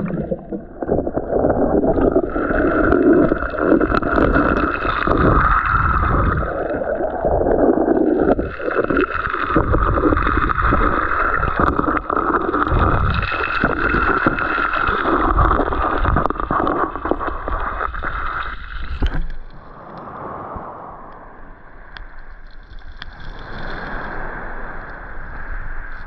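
Sea water heard by a camera held underwater: a dense, muffled rushing and gurgling with frequent small clicks. About nineteen seconds in it drops abruptly to a quieter, lighter wash.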